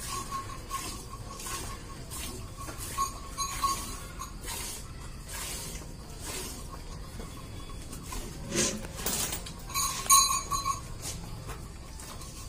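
Hand-milking a water buffalo: jets of milk squirting into a metal pail in a steady rhythm, a squirt every half-second or so, with a few louder knocks later on.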